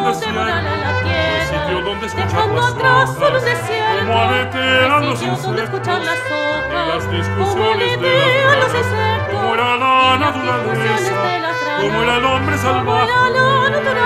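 Contemporary chamber music for voice and small ensemble. A singer holds notes with wide vibrato over low bass notes that change in steps, with brass and sharp percussive strikes mixed in.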